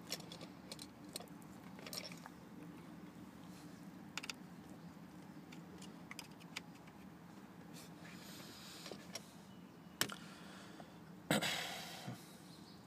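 Small clicks and scrapes of a Torx screwdriver and screws on the plastic clock-spring (slip ring) housing of a BMW steering column as its screws are undone, with a harder click about ten seconds in and a louder rattle just after, over a steady low hum.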